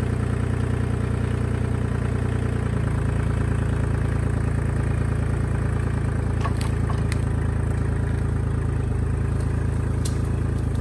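Kubota L2501 compact tractor's three-cylinder diesel engine running steadily as the tractor pulls on a chain hooked to a tree. Its note changes about three seconds in, with a few light clicks later on.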